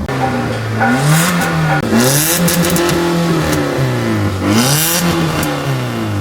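2017 Hyundai i20's engine revved up and down three times, with a loud, harsh rasp at the top of each rev. The rasp is the sign of exhaust leaking through the rust-holed, cracked center exhaust pipe.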